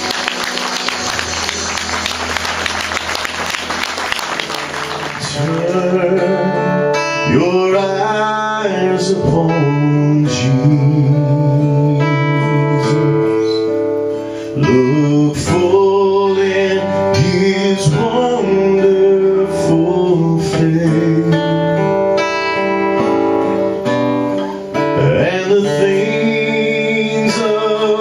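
A man singing a country song to his own strummed acoustic guitar. The guitar plays alone for the first few seconds, and the voice comes in about six seconds in.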